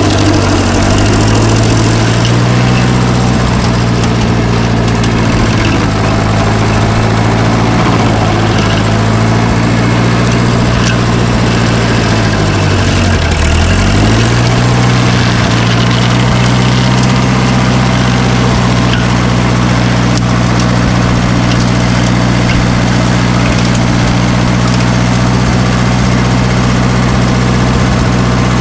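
A heavy machine's engine running steadily. About thirteen seconds in, its pitch sags briefly and then comes back up.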